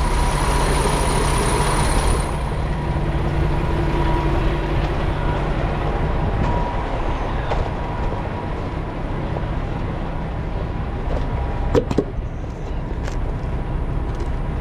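Semi-truck diesel engine idling steadily, with a hiss that cuts off about two seconds in and a few sharp knocks near the end.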